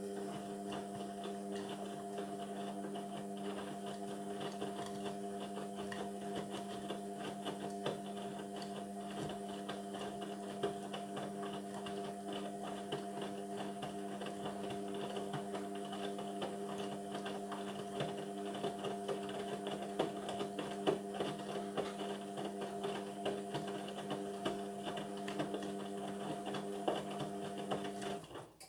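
Indesit washing machine mid-cycle giving a steady electric hum, starting at once and cutting off sharply near the end, with faint clicks and rattles over it.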